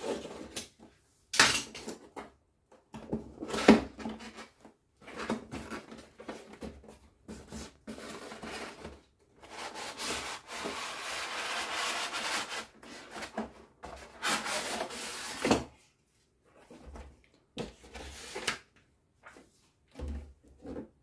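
A boxed package being opened and unpacked by hand: irregular rubbing and scraping of cardboard and packaging, with a few sharp knocks and a longer stretch of steady scraping around the middle.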